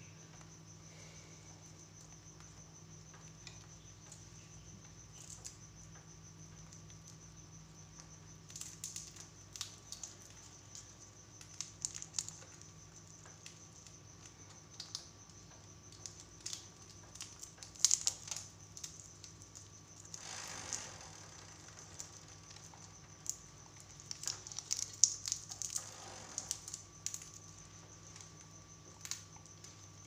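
Ringneck parakeets cracking and nibbling peanuts with their beaks: irregular sharp clicks and crunches that grow busier after the first few seconds. Under them run a steady thin high chirr and a low hum.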